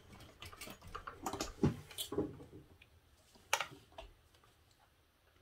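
Irregular light clicks and knocks of a sewing machine being handled and a nylon dog-collar strap with a plastic buckle being drawn out from under the presser foot. The clicks are closely spaced for the first couple of seconds, then come singly.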